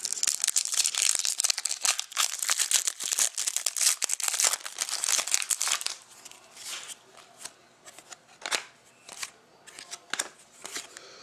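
Trading card pack wrapper crinkling loudly as the pack is torn open and handled for about six seconds, then quieter scattered clicks and rustles of the cards being handled.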